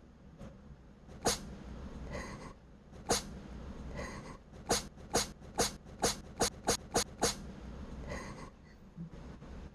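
A cat sneezing in a fit: about ten sharp sneezes, two spaced apart, then a quick run of eight in under three seconds, with short breaths between them.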